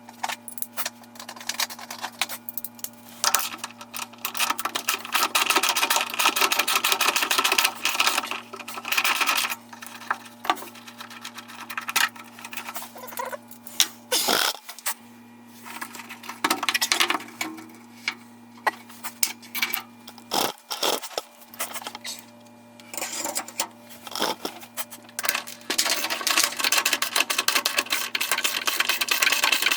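Rapid mechanical clicking and rattling over a steady low hum, with the hum cutting out briefly twice.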